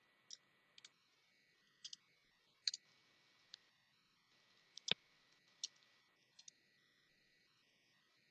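Computer keyboard being typed on slowly: faint, sharp key clicks at uneven intervals.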